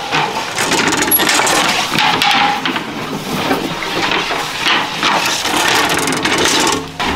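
A long metal oven rake scraping and clattering in repeated, irregular strokes against the hearth and iron mouth of a wood-fired bread oven.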